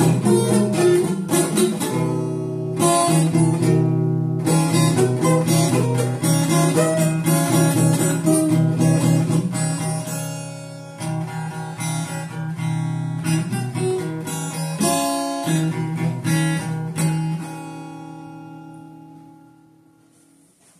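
Acoustic guitar being strummed through a run of chords. The playing stops with a last chord about three seconds before the end, and it rings on and fades away.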